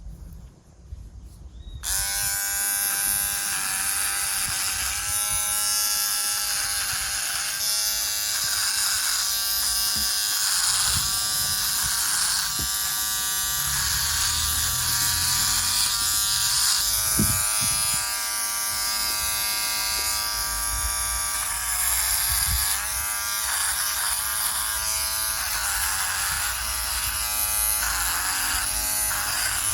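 Philips Norelco OneBlade electric trimmer buzzing as it shaves a thick beard. It switches on about two seconds in and runs steadily, its pitch wavering and dipping now and then.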